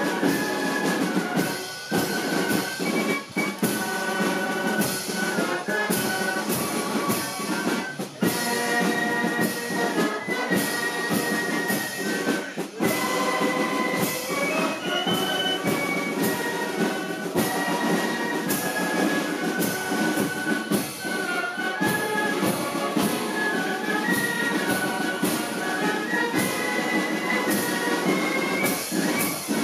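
Brass band music: a melody of held notes over regular drum beats, playing without a break.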